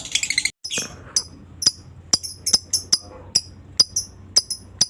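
Lovebird calling: a rapid, high chattering trill that breaks off about half a second in, followed by a steady series of sharp, short high chirps about two a second.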